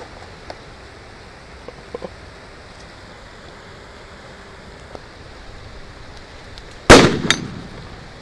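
A carbide bomb going off: acetylene from calcium carbide and water ignites with one loud bang about seven seconds in, a smaller second crack right after, then dies away. Earlier there are only a few faint clicks.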